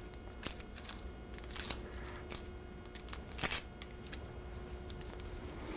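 Dry, papery onion skin being peeled off a sweet onion by hand: soft, scattered crackles and rustles, the loudest about three and a half seconds in.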